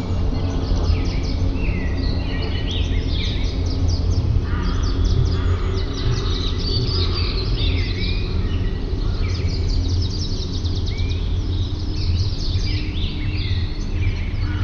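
Many wild birds calling at once: overlapping chirps, fast trills and short whistled glides with no pauses, over a steady low hum.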